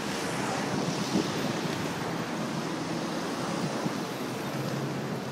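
Road traffic passing close by: a steady rush of engine and tyre noise, with wind buffeting the microphone.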